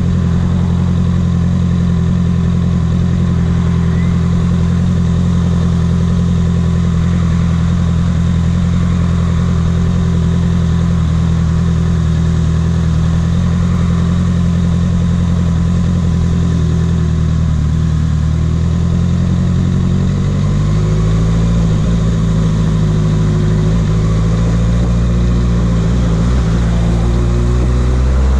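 A sport motorcycle's engine running at low, steady revs at low road speed. From about two-thirds of the way in, the pitch wavers and then rises a little near the end.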